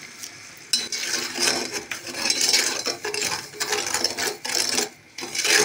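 A metal spoon stirring sugar and water in a stainless steel saucepan, scraping and clinking against the pan in quick repeated strokes that start about a second in. The sugar is being dissolved for a sugar syrup.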